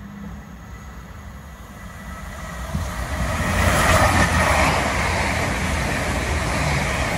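East Midlands Railway Class 222 Meridian diesel multiple unit passing at speed. A rumble of its underfloor diesel engines and wheels on the rails builds from about two seconds in and peaks about four seconds in. It stays loud as the coaches go by.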